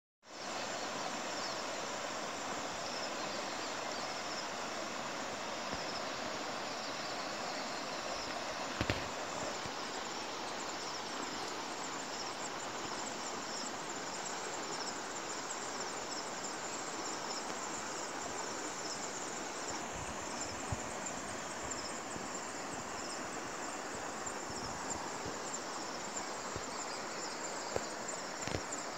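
Insects chirring in a fast, pulsing high note over an even outdoor hiss, with a couple of faint ticks.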